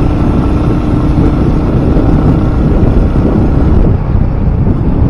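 Loud wind buffeting on the microphone while riding a Royal Enfield Hunter 350 at highway speed, with the bike's single-cylinder engine running underneath. A steady low hum fades out about a second and a half in.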